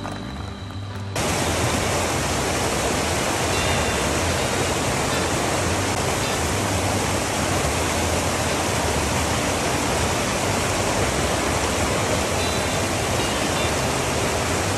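Loud, steady rushing noise that starts abruptly about a second in, after a moment of background music.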